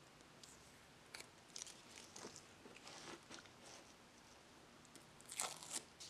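A handful of faint, short scrapes and clicks, the loudest a pair near the end, like hard parts or a tool being handled on a workbench.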